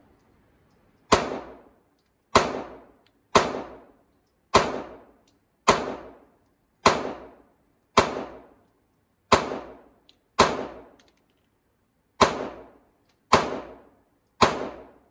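Taurus GX4 pistol fired twelve times at a steady pace of about one shot a second, with a slightly longer pause before the last three. Each shot rings out with a short echo off the indoor range walls.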